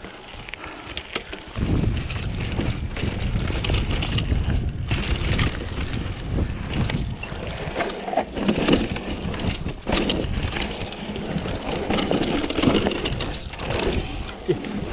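Mountain bike ridden along a gravel and rock forest trail, heard through an action camera: low wind rumble on the microphone that picks up about one and a half seconds in, with tyre noise over the ground and scattered clicks and rattles from the bike over bumps.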